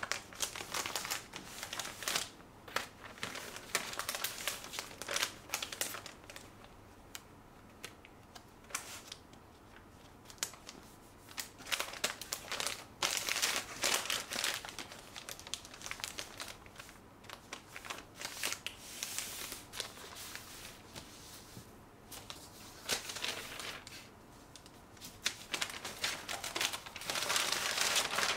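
Kraft wrapping paper rustling and crinkling as it is folded and smoothed by hand, in irregular bursts with quieter pauses between.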